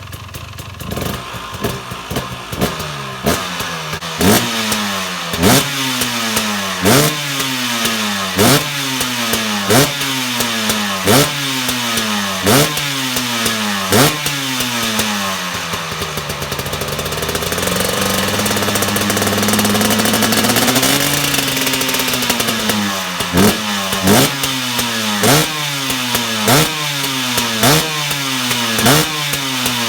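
KTM 300 EXC TPI two-stroke single being revved with short, sharp throttle blips about every second and a half, each rev rising fast and dropping back slowly. In the middle comes one longer, held rev that swells and falls off, and then the quick blips resume.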